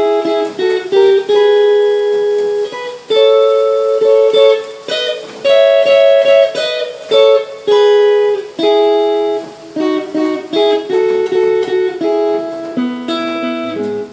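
Clean Telecaster-style electric guitar playing a rockabilly phrase of picked triad chord shapes, each chord ringing briefly before the next is struck. Near the end it steps down to lower notes.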